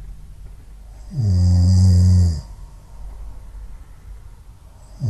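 A cat snoring: one loud, low-pitched snore lasting about a second and a half starts about a second in, and the next snore begins right at the end.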